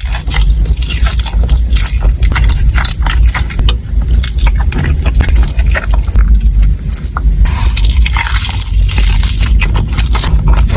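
Close-miked chewing and wet mouth sounds of someone eating, with many quick, sticky smacking clicks.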